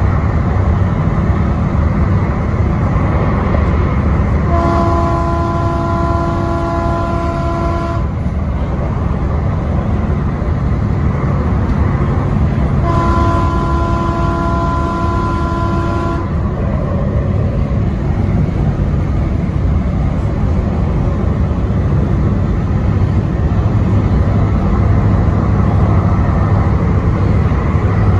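DART light rail train running with a steady rumble, its horn sounding two long blasts of a several-tone chord, each about three and a half seconds, the second some five seconds after the first ends.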